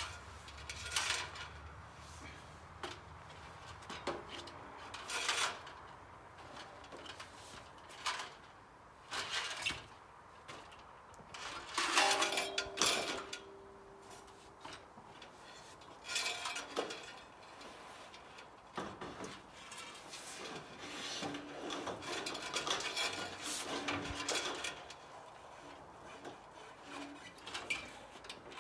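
Irregular scraping, rubbing and knocking of tools and materials being handled, with a louder ringing clank about twelve seconds in.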